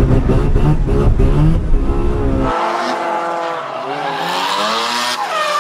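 Mazda RX-7 FD drift car at high revs, first recorded inside the cabin with loud, deep engine noise. After about two and a half seconds it is heard from trackside, the engine revving up and down while the tyres squeal in a slide.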